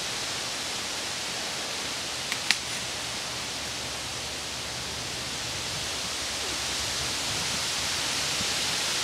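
Steady rushing hiss with no pitch, with two sharp clicks close together about two and a half seconds in.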